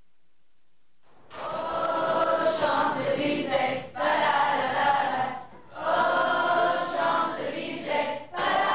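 A group of voices singing together in phrases with short breaths between them, beginning about a second in after a quiet start.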